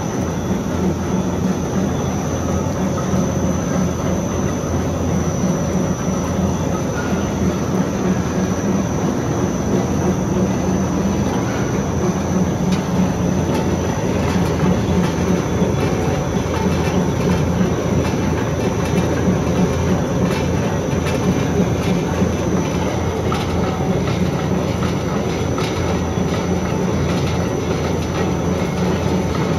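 Two-colour flexographic printing press running, its paper web feeding steadily through the rollers: a steady low hum with a constant high whine and faint rapid ticking.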